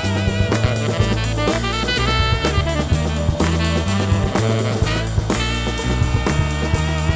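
Background music with a steady drum-kit beat, a bass line and a pitched melody over it.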